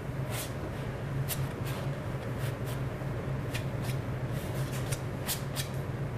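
Palette knife scraping and dabbing thick oil paint onto a canvas: a string of short, irregular scrapes over a steady low hum.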